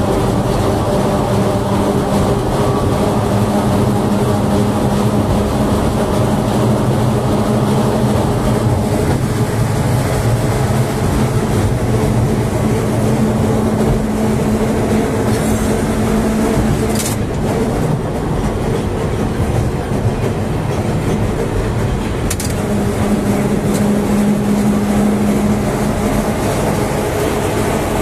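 Historic tram running along its rails, heard from inside the car: a steady hum with rolling wheel noise, and two sharp clicks in the second half.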